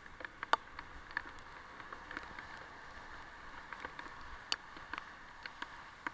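Bicycle riding along a wet path in the rain: a steady hiss of tyres and rain with scattered sharp ticks and clicks, a louder one about half a second in and another about four and a half seconds in.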